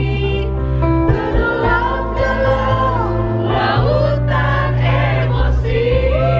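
Live band music with many voices singing the melody together, a concert crowd singing along over steady bass notes.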